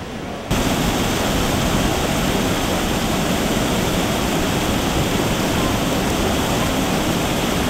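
Water rushing steadily over a canal weir, a loud even rush that starts abruptly about half a second in.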